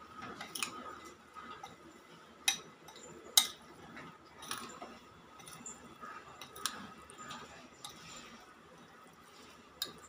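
Steel spoon stirring raw chicken pieces in a glass bowl: soft scraping and squelching, with several sharp clinks where the spoon strikes the glass.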